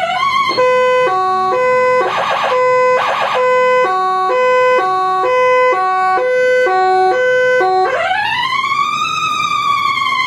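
Plug-and-play automatic electronic siren cycling through its tone patterns. First a two-tone high-low alternation that switches about twice a second, broken by two short warbling bursts. Then, near the end, a wail that rises for about a second and slowly falls.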